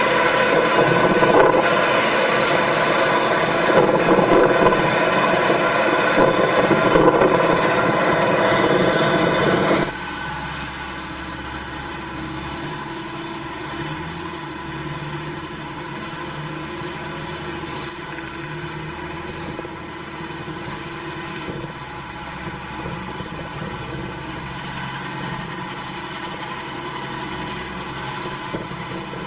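Farm machine engine running steadily. About ten seconds in the sound cuts abruptly to a quieter, lower-pitched engine running on.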